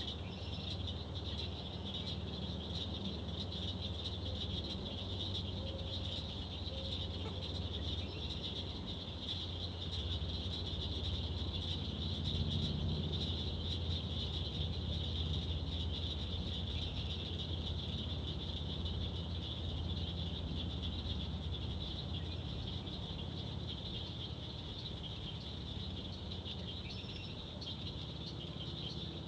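A steady, high-pitched chorus of calling swamp frogs that does not let up, with a low steady hum underneath.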